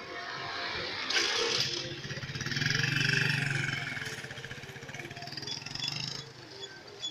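A motorcycle passing close by: its engine note grows to its loudest about three seconds in, then fades as it rides off. A short rushing noise comes just before it, about a second in.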